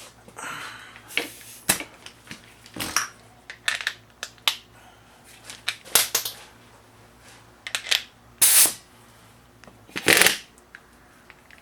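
Irregular clicks, clinks and rattles of hand tools and metal parts being handled during vehicle repair work, with two longer, noisier sounds about eight and ten seconds in.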